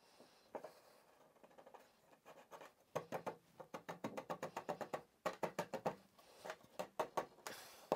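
Hands pressing and tapping a walnut-veneered plywood shelf into a tight fit in a wooden cabinet carcass. From about three seconds in there is a quick, irregular run of light taps with scraping of wood on wood.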